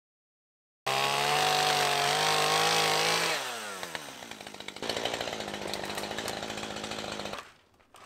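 Chainsaw running at full throttle, starting abruptly about a second in. About three seconds in its revs fall, and it settles to idle before cutting off near the end.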